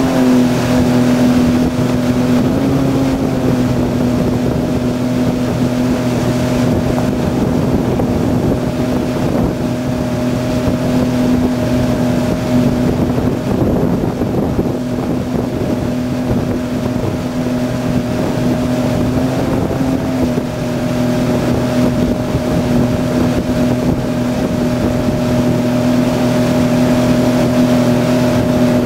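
A towboat's engine running steadily at towing speed, its pitch lifting slightly twice. Wind buffets the microphone over the rush of the boat's wake.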